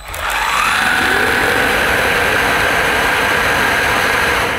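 AEG FX9 cordless vacuum, running as a handheld with its mini motorised brush tool, switched on: its brushless motor whine rises in pitch over about the first second as it spins up, then runs steady over a loud rush of suction air. Right at the end it begins to wind down.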